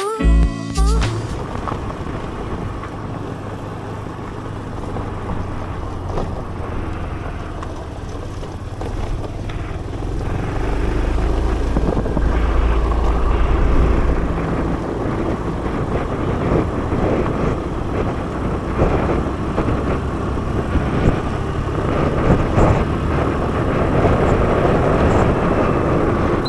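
Scooter ride heard through a DJI Osmo Action 3's built-in microphone: steady engine and road noise, with wind buffeting the mic as a low rumble that grows heavier about ten seconds in. Background music cuts off about a second in.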